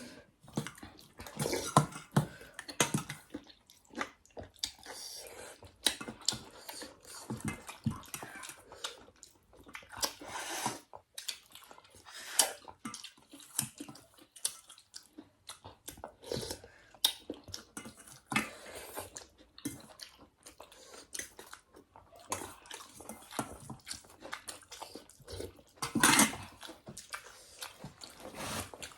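Close-up eating sounds of noodle soup: irregular wet slurps of thukpa noodles and broth, with chewing in between; the loudest slurp comes about 26 seconds in.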